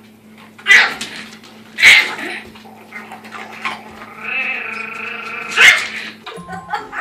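A small puppy guarding its food bowl yaps sharply three times at a bigger dog, with a drawn-out growl between the second and third yap. A steady low electrical hum runs underneath until the sound cuts off shortly before the end.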